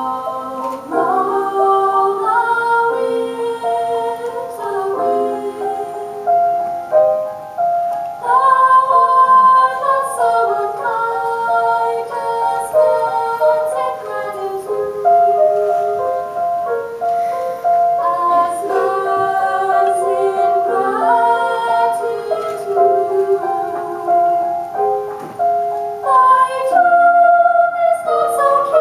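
Chamber choir singing a slow art song in several-part harmony, with long held notes moving together phrase by phrase.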